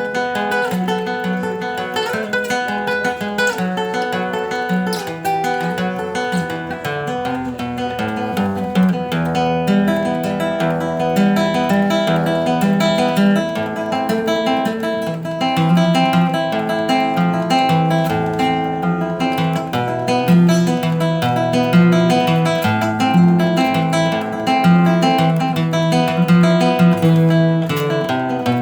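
Acoustic guitar playing an instrumental milonga, with plucked bass notes moving under a melody line.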